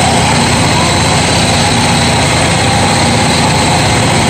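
Stucco pump's engine running steadily under load while it feeds mortar through the hose to the spray nozzle, a constant dense machine noise with a fast even pulse.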